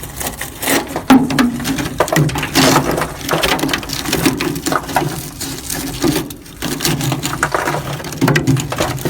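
Dense, irregular crunching and rattling of rotted-through, rusted sheet metal on an old seed drill's hopper box being handled, with flakes of rust crumbling off.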